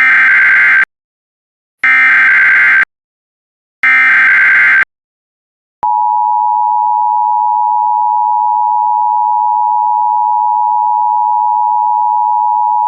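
Emergency Alert System SAME header: three short bursts of screechy digital data tones about a second apart, the first already under way. Then, about six seconds in, the steady two-tone EAS attention signal begins and holds.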